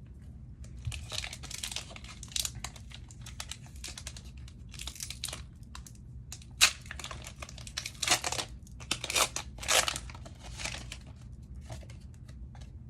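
Foil wrapper of a Pokémon trading card booster pack crinkling and tearing as it is handled and opened, in irregular crackles with a few louder rips.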